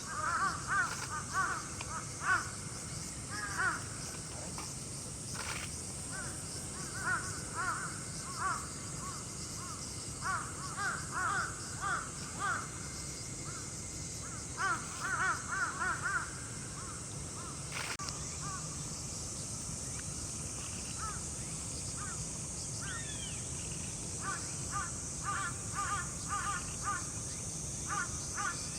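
Crows cawing in repeated bouts of several short caws, with pauses between bouts, over a steady high-pitched hiss.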